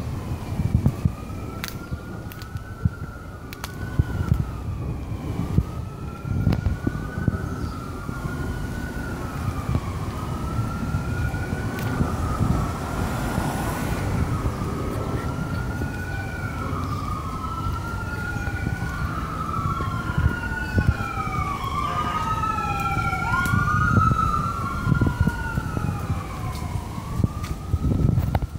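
Emergency vehicle siren wailing, its pitch rising and falling about every one and a half seconds, with a second siren overlapping in the latter half. A low rumble of street noise lies underneath.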